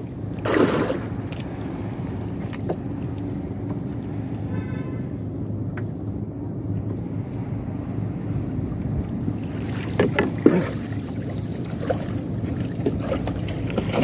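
Gill net being hauled by hand over the side of an outrigger canoe, making wet splashes and rustles about half a second in and again around ten seconds in, over a steady low hum.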